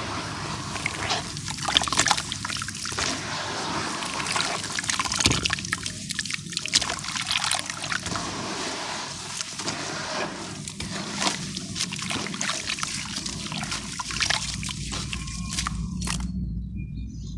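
Hands kneading and crumbling soaked charcoal-and-sand chunks in a tub of water: continuous sloshing and trickling with many small gritty crackles. It thins out sharply shortly before the end.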